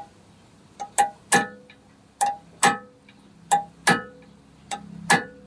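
Hammer striking an old spanner used as a punch to stake the collar of a Honda HR-V drive shaft nut, locking the nut in place. About nine sharp metallic strikes, each with a short ring, mostly in pairs about a second and a quarter apart.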